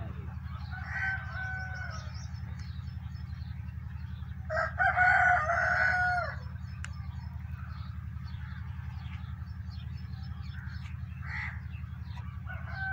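A rooster crowing: a faint crow about a second in, then a loud one lasting nearly two seconds about halfway through. A steady low hum runs underneath.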